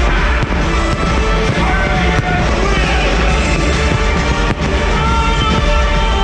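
Loud soundtrack music of a fireworks show, with two sharp firework cracks about two and four and a half seconds in.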